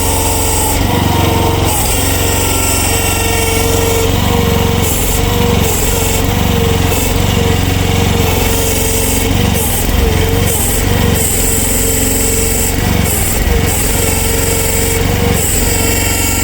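Future FT15 mini excavator's small engine running steadily.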